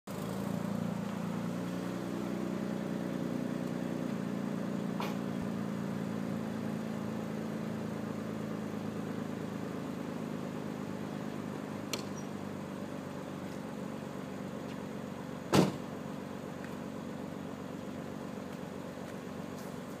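Mitsubishi 3000GT Spyder's V6 engine running as the car pulls up and settles to a steady idle hum. A single sharp thump sounds about three-quarters of the way through.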